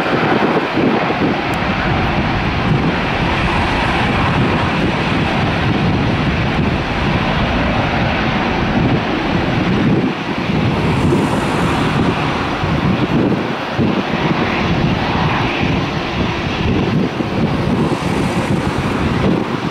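Airbus A350-941's two Rolls-Royce Trent XWB turbofans at takeoff power as the airliner accelerates down the runway away from the listener, a loud, steady jet rumble.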